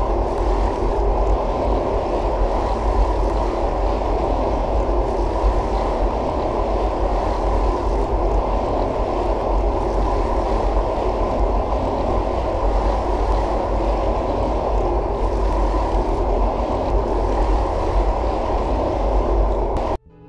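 Steady, muffled low rumbling noise with no clear rhythm or pitch, cutting off suddenly near the end.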